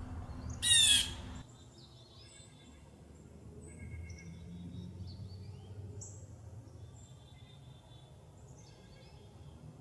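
Blue jay giving one loud, harsh jeer call about half a second in, then faint, scattered high chirps and whistles of small birds over low background noise.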